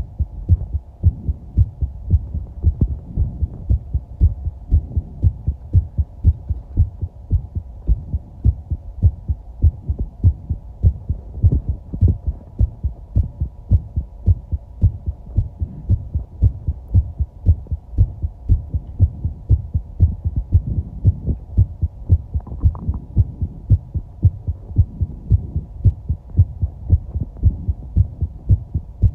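A person's heartbeat heard up close, a steady, regular low pulse that keeps an even rhythm throughout, with a brief higher sound about 22 seconds in.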